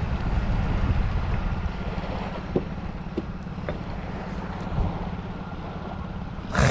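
Wind buffeting the microphone as a steady low rumble, strongest in the first couple of seconds, with a few faint clicks in the middle and a short loud rustle near the end.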